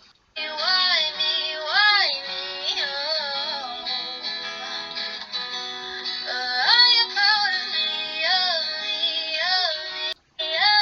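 Music: a song with a high singing voice over a plucked-string accompaniment. It cuts out briefly right at the start and again near the end.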